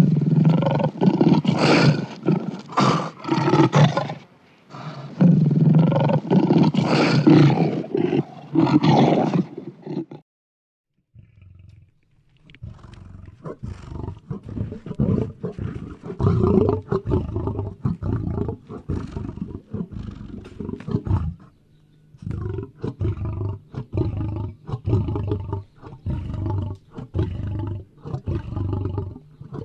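Lion growling: two long loud bouts in the first ten seconds, then after a brief gap a long run of pulsed growls.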